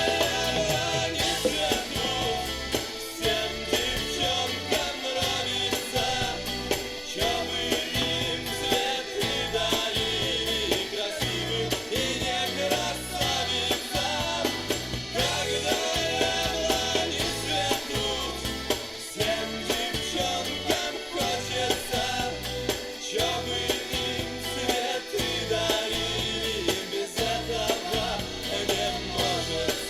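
Recorded music with a singing voice, played through an Akkord 201 amplifier and loudspeakers and picked up by a microphone in the room.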